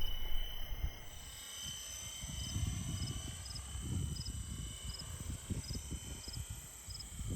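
Wind buffeting the microphone, with a faint steady high whine and a small chirp repeating about every half second.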